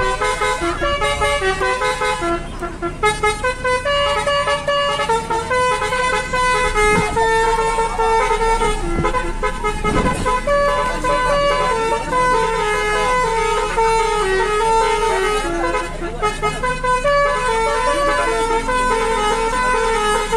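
Bus telolet basuri horn, a multi-tone musical air horn, playing a tune in short stepped notes. A low rumble swells briefly about halfway through.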